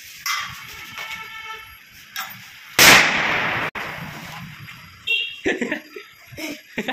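A firecracker going off once almost three seconds in: a loud bang that rings on for most of a second, then cuts off abruptly. Voices are heard around it.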